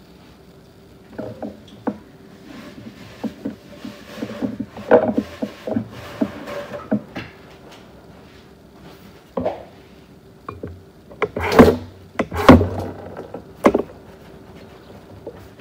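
A series of scattered knocks and clatters, like objects being handled and set down, with two loud thumps about a second apart near the end, over a faint steady hum.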